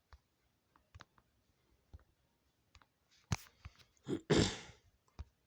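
Scattered computer mouse and keyboard clicks, with a louder click about three seconds in and a short, loud, noisy burst a second after it.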